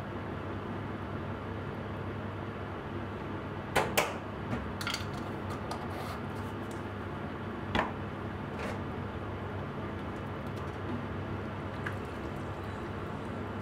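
Pot of beef tendon stew simmering on a gas stove, a steady low hiss and hum, with sharp metal clinks of a spoon and ladle against the pot: a quick cluster about four seconds in and two more around eight and nine seconds.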